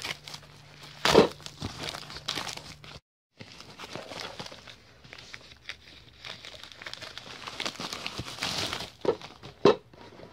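Plastic bubble mailer crinkling and rustling as it is opened and a hand rummages inside, with one loud crackle about a second in and a short break in the sound about three seconds in. Two sharper knocks come near the end as the boxed watch is drawn out.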